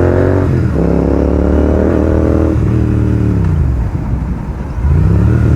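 Royal Enfield Continental GT 650's 648 cc parallel-twin engine, through a Red Rooster Performance exhaust with the dB killer removed, accelerating hard through the gears. The revs climb, break for a shift about half a second in, and climb again. Around two and a half seconds in the throttle closes and the revs fall away, then they pick up again near the end.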